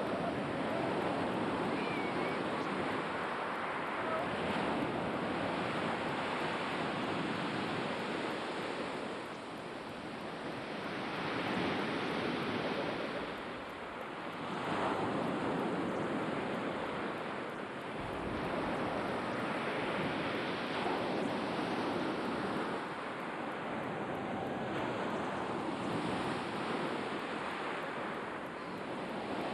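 Black Sea waves breaking on the shore, the surf swelling and easing every few seconds, with some wind on the microphone.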